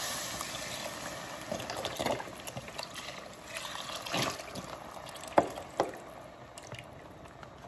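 Chicken broth pouring from a carton into a hot cast iron ceramic Dutch oven of toasted rice and vegetables, the sizzle fading as the pot fills, with a few sharp clicks along the way.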